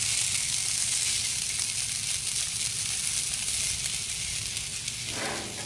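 Angus beef burger patty sizzling in its fat on a hot Blackstone flat-top griddle: a steady hiss.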